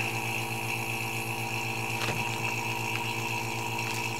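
Small electric vacuum pump running with a steady, slightly pulsing hum as it draws the air out of a foil bag of freeze-dried food through a vacuum needle. A faint crackle comes about two seconds in.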